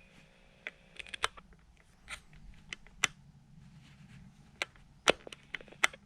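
Scattered sharp plastic clicks and taps, about a dozen at uneven spacing, from the Timex T234S clock radio being handled and its buttons pressed.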